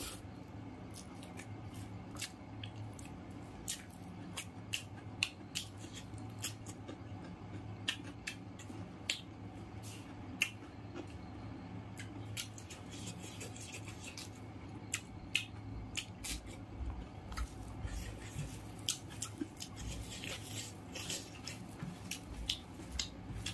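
Close-up eating sounds of rice and curry eaten by hand: chewing and lip smacking, with many sharp irregular mouth clicks over a low steady hum.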